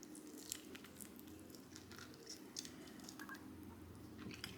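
Faint chewing of a sauce-glazed chicken wing flat, with scattered small clicks.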